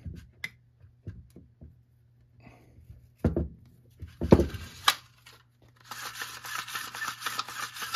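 A few handling clicks and knocks as the starter rope is untied and pulled out of a Troy-Bilt TB22EC string trimmer's recoil starter. For the last two seconds the recoil pulley spins free in its plastic housing with a fast rattling whir.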